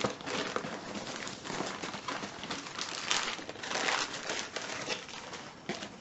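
Plastic packaging crinkling and rustling as it is handled, in irregular bursts that are busiest in the middle and die down near the end.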